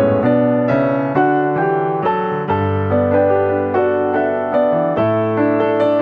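Background piano music: a gentle melody of evenly paced notes over held bass notes that change every couple of seconds.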